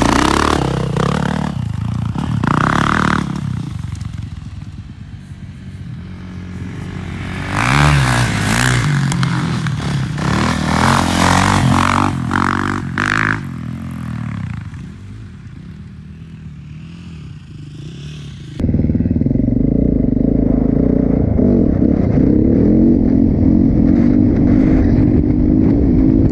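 Single-cylinder four-stroke 450 off-road engine revving in surges as it rides across a field, rising and falling with the throttle. After a sudden cut about two-thirds of the way through, the Yamaha 450 dirt bike's engine is heard close up from its onboard camera, running at a steady throttle.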